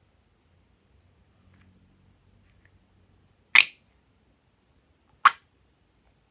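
Plastic squeeze bottle spitting out air and liquid twice, about a second and a half apart, as it is squeezed while running low. Each spurt is short and sharp.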